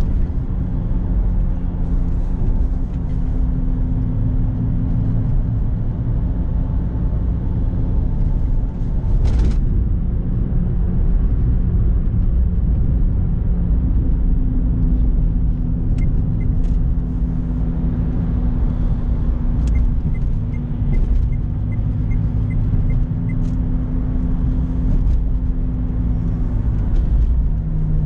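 Renault Clio Symbol's engine and road noise heard from inside the cabin while driving, a steady low drone that settles at a new pitch a few times as the car changes speed. There is a short sharp noise about nine seconds in, and a run of faint, even ticks past the middle.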